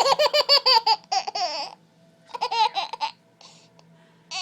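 Baby of about ten months laughing in three bouts of quick high-pitched giggles. The first bout is a rapid string of about seven pulses in a second, and two shorter bouts follow.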